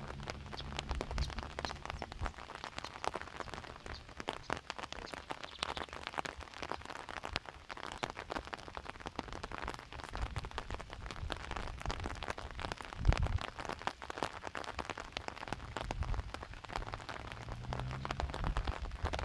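Rain pattering close by: a dense, irregular scatter of small ticks, with a low thump about thirteen seconds in.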